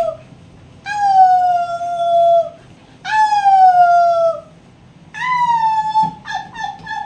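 Howling in three long calls, each about a second and a half and falling slightly in pitch, then a few short broken howls near the end. A woman howls to set off her black German Shepherd, and the dog howls along.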